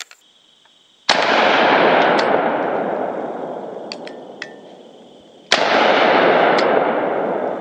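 Two shots from a Smith & Wesson Governor revolver, about four and a half seconds apart: about a second in and near the end. Each is a sudden crack followed by a loud noise that fades away over several seconds.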